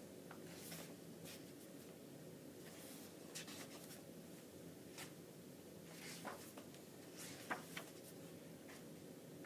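Pages of a thick photobook being turned and handled: faint, irregular paper swishes and rustles over a steady low room hum.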